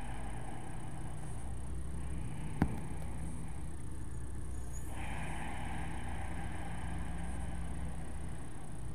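Steady low room rumble with a soft hiss that fades out just after the start and returns about five seconds in, and a single sharp click about two and a half seconds in.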